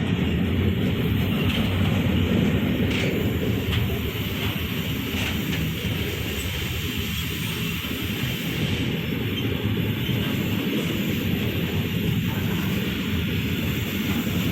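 A train passing through at speed, its wheels on the rails making a steady, loud rumble with a few faint clicks in the first few seconds.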